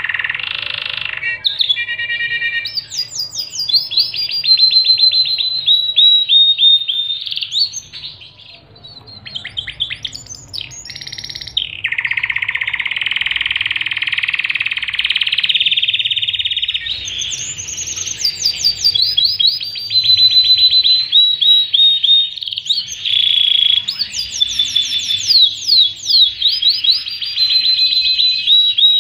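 Domestic canary of the black-and-white pied 'panda' type singing a long, varied song: fast trills of repeated high notes alternating with sustained buzzing rolls, with a short lull about eight seconds in.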